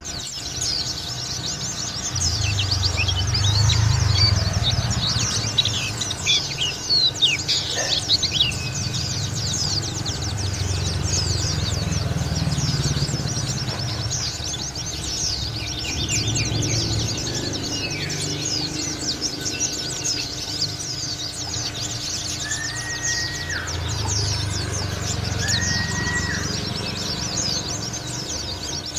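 Pleci dakun (white-eye) in full, continuous song (ngalas): a dense, fast stream of high chirps and twitters with no break, over a low rumble that swells and fades. Two short whistled notes come near the end.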